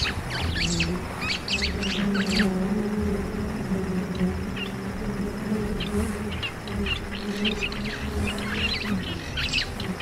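A mass of honeybees buzzing, a steady drone that wavers in strength. Birds chirp over it, most busily in the first couple of seconds and again near the end.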